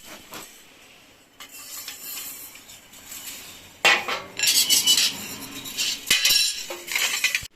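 Metal parts stripped from an old electric fireplace, thin sheet-metal pieces and a metal grille, clattering and clinking as they are handled and dropped together. The clatter grows much louder about four seconds in.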